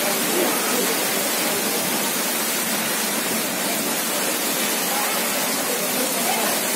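Heavy rain falling, a steady dense hiss that does not let up.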